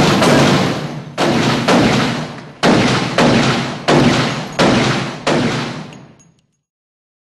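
A run of about seven heavy booming impact hits, a sound effect typical of a horror trailer's title card. They come roughly every 0.7 seconds, each dying away before the next, and fade out about six seconds in.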